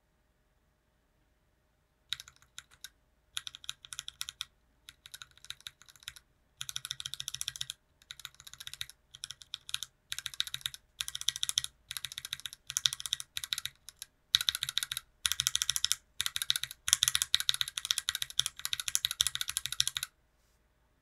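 Linear mechanical keyboard switches (Gateron Black Inks, one fitted with an ultra-high-molecular-weight polyethylene stem, one with its stock stem) pressed repeatedly on an aluminum TOFU60 with a brass plate and GMK keycaps. Fast keystroke clacks come in short groups, starting about two seconds in, growing denser and louder, and stopping about a second before the end.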